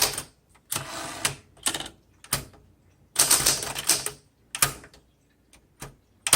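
1968 Smith Corona Super Sterling manual typewriter being worked by hand: irregular sharp clacks, with two longer rattling stretches about a second in and about three seconds in.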